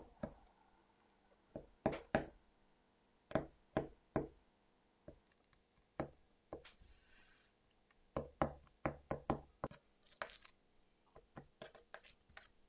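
Irregular knocks and taps of kitchen utensils on a cutting board or counter, coming in small clusters. A short soft hiss about seven seconds in and a brief crisp rustle about ten seconds in.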